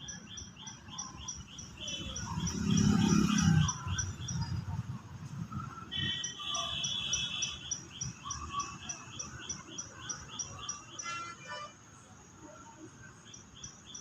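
A bird chirping in quick, even repeats, about four chirps a second, stopping about eleven seconds in and coming back briefly near the end. A louder low, muffled rumble lasts about a second, starting about three seconds in.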